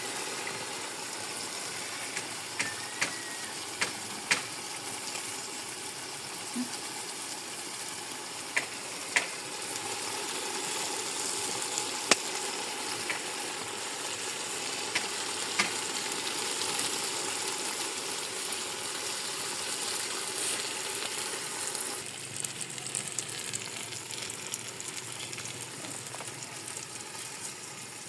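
Food frying in a hot pan, a steady sizzle, with sharp clicks of a cooking utensil against the pan now and then as it is stirred.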